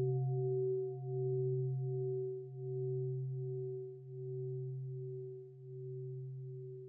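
A singing bowl's long ring slowly fading, a deep hum with a few higher overtones that wavers in a slow pulse about every one and a half seconds.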